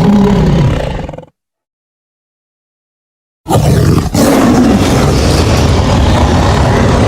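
Tiger roaring: one roar fades out about a second in, then after two seconds of complete silence another long, loud roar starts abruptly.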